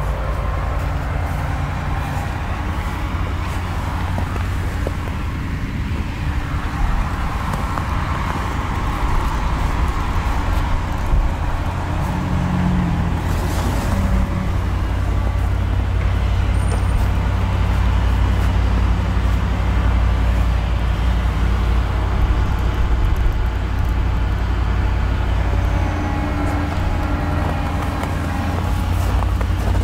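Volkswagen Caravelle T6's 2.0 TDI four-cylinder diesel idling steadily, heard from outside around the back of the van.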